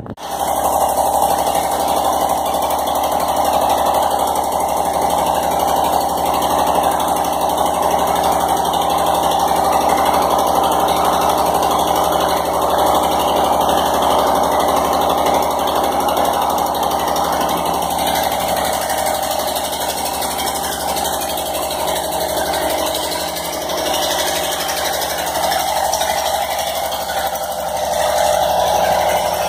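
A motor running with a loud, steady drone.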